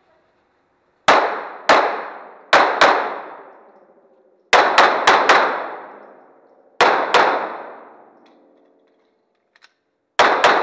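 Twelve 9mm pistol shots from a Glock 17, mostly fired in quick pairs, each ringing out in the echo of an indoor range hall. There is a longer pause before the last pair.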